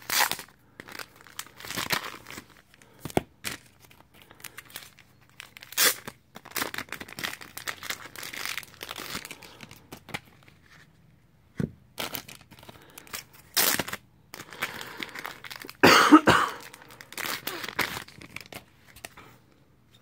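Paper and plastic mail packaging being torn open and handled: irregular bursts of tearing and crinkling, with one louder burst about three-quarters of the way through.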